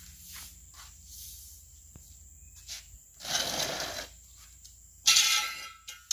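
Long-handled broom sweeping a concrete walkway: light, regular strokes, then two louder scraping sweeps about three and five seconds in, the second the loudest.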